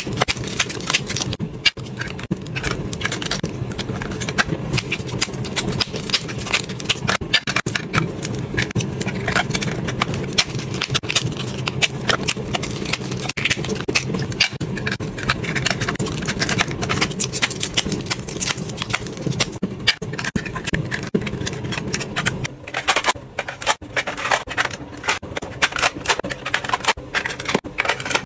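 Plastic cosmetic packaging crinkling and clicking as small packs are handled, opened and sorted with long fingernails, in dense irregular taps and rustles. Under it runs a steady low hum that drops away near the end.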